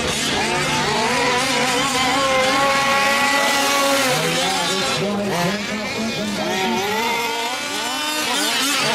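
Several 1/5-scale RC trucks' small two-stroke gas engines buzzing together, their pitches rising and falling as they rev up and back off around the track.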